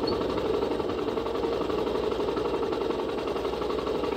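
Vehicle engine running steadily under way on a dirt track, with a fast, even throb.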